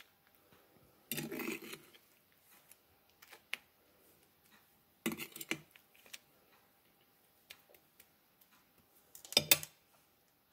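A metal fork clinking and scraping against a glazed earthenware dish as soaked bread slices are moved and lifted, in three short bouts of clatter about four seconds apart, the last the loudest.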